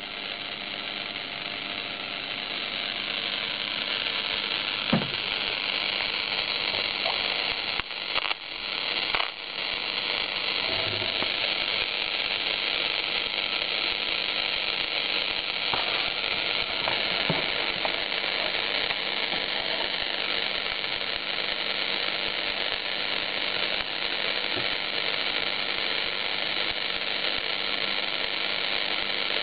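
Shortwave receiver's loudspeaker hissing with steady static from the 14 MHz band, with a couple of faint clicks and a brief dip about a third of the way through.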